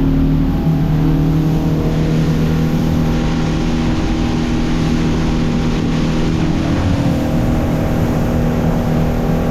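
Boat motor running steadily under way, a constant drone with a broad rushing noise over it.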